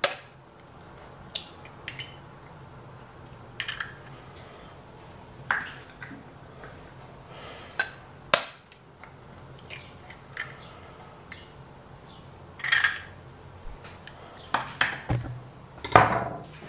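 Two eggs cracked one after another on the rim of a glass bowl: scattered sharp taps and clinks of eggshell on glass as the shells break open. The loudest clink comes about eight seconds in.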